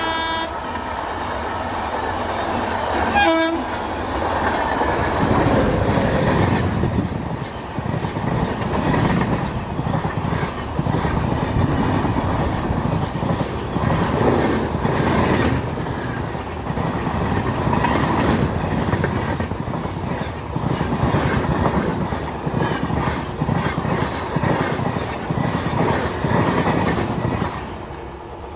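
Passenger coaches of an Indian Railways express passing close at speed, with a fast, loud clatter of wheels over the rail joints. A short electric-locomotive horn blast sounds about three seconds in. The clatter drops away near the end as the last coach goes by.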